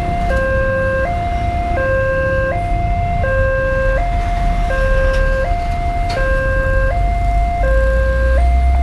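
Railway level-crossing warning alarm from the loudspeaker on the signal post: an electronic two-tone signal alternating evenly between a low and a higher tone, each held for under a second, warning that a train is approaching and the barrier is closing. Road traffic rumbles underneath and grows louder near the end.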